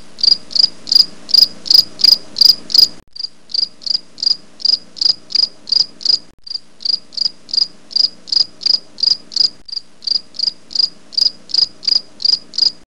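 Cricket chirping steadily, about three short high-pitched chirps a second, over a faint low hum, with the sound breaking off briefly three times.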